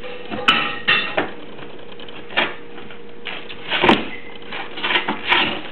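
Puppy biting and pawing at the cardboard box it stands in: a run of irregular cardboard scrapes and knocks, about seven, the loudest near four seconds in.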